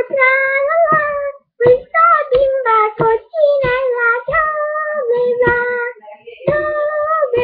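A high voice singing a simple tune unaccompanied: sustained notes broken into short phrases with brief pauses between them.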